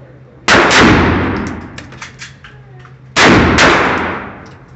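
Two loud gunshots about two and a half seconds apart, each with a second sharp report a split second after it and a long echoing tail.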